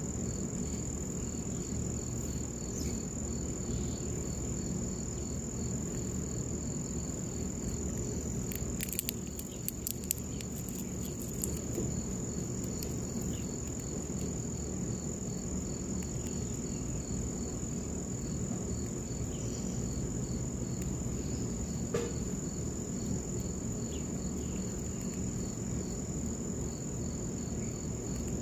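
Insects chirping: a steady high trill with a second, softer chirp repeating in an even rhythm several times a second, over a low steady outdoor hum. A few short sharp clicks come about a third of the way in and once more later.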